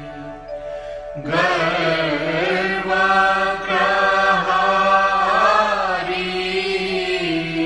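Devotional guru vandana chant: a voice chanting a melodic line over a steady held accompaniment. The voice comes in about a second in and sings in phrases until near the end, where the sound settles back to held tones.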